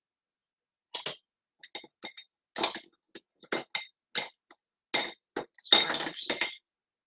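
Metal utensils, spoons among them, clinking against kitchenware: about a dozen light clinks, each with a short ringing tone, coming thickest about six seconds in.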